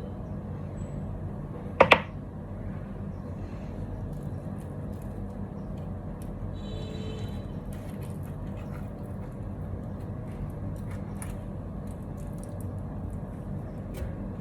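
A sharp ringing clink, like a hard object knocking against crockery, about two seconds in, over a steady low hum with a few faint ticks.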